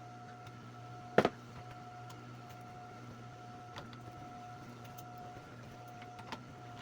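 A steady low electrical hum with a faint higher tone that keeps breaking off and coming back. There is a sharp click about a second in and two fainter clicks later.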